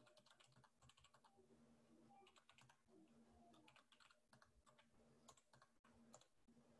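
Faint computer keyboard typing: irregular, scattered keystrokes as a command is typed.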